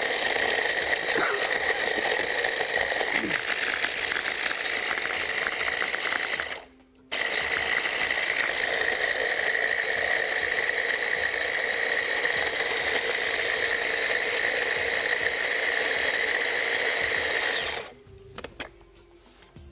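Electric hand blender with a chopper bowl running steadily, grinding bread slices into crumbs. It stops for about half a second around six seconds in, runs again, and cuts off about two seconds before the end.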